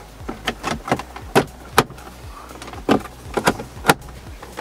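Mercedes A-Class dashboard air vents being pushed back into their openings: about ten irregular sharp clicks and knocks of plastic trim snapping and seating.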